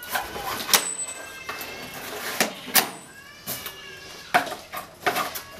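Plastic strapping bands on cardboard cartons being cut and pulled loose: a handful of sharp snaps and clicks, with thin squeaks as the strap rubs between them.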